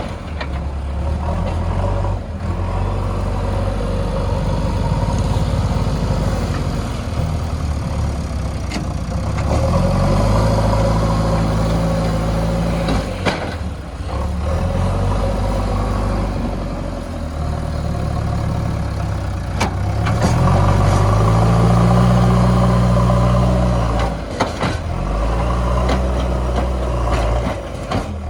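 Diesel engine of a JCB 3DX backhoe loader running while it works mud, revving up under load twice and settling back, with occasional sharp knocks.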